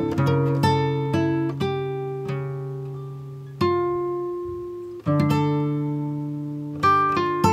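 Background music: plucked guitar notes and chords ringing and fading, with a few long chords let ring in the middle.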